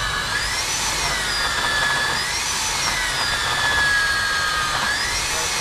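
Electric diamond core drill wet-cutting through reinforced concrete. Its motor whine slowly rises and falls in pitch over a steady grinding.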